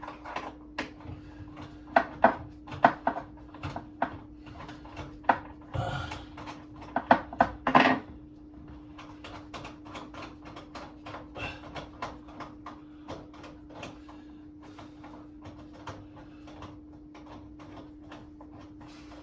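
Irregular clicks and knocks of a microwave's mounting bolt being worked up into the cabinet above it, loudest in a cluster of knocks over the first eight seconds, then lighter ticking. A steady hum runs underneath.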